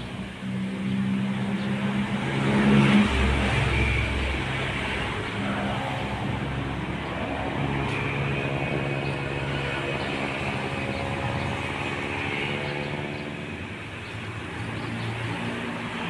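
Engine noise of passing motor vehicles: a low, steady drone whose pitch slowly rises and falls, loudest about three seconds in.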